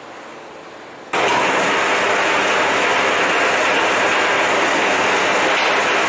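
V-KOF electric wire stripping machine switched on about a second in: its 3 kW motor and roller drive start abruptly and run with a loud, steady whirr.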